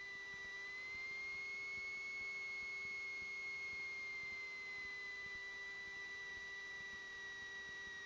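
Faint electrical whine in the audio line: a steady high tone that drifts slightly up and back down in pitch, over a weaker hum.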